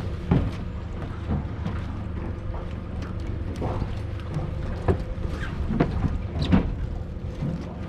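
Scattered clicks and knocks as crabs and a starfish are handled in a crab pot, over a steady low hum.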